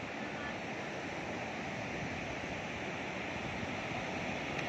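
Ocean surf breaking on a beach: a steady, even rush of waves.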